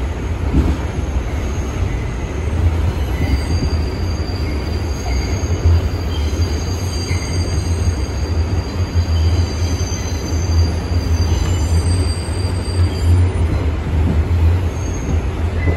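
Inside an R142 subway car running at speed: a steady low rumble of wheels on the rails, with high-pitched wheel squeal coming and going through the middle of the stretch.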